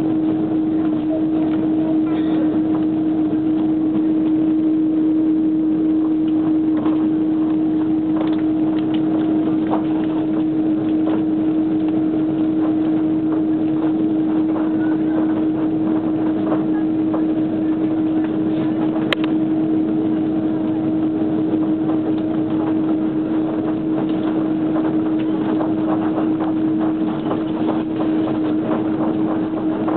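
Airbus A330 jet engines running steadily at taxi power: an even rushing hum with a strong held low tone.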